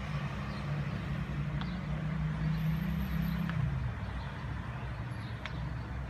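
Low hum of a road vehicle's engine from the street below, dropping in pitch about three and a half seconds in. Faint calls of many circling seagulls come through above it.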